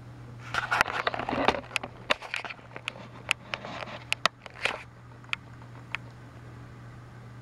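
Small stones clattering onto plastic toy track and a textured mat: a run of irregular sharp clicks and rustling lasting about four seconds, which then stops, leaving a steady low hum.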